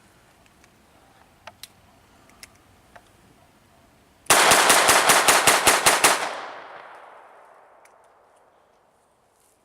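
A few faint clicks, then about a dozen gunshots fired in one rapid burst lasting under two seconds, with a long echo fading away after it.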